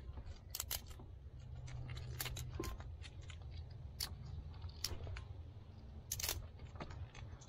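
Scattered light clicks and knocks of wiring and car-audio parts being handled, irregular and a dozen or so in all, over a low steady rumble.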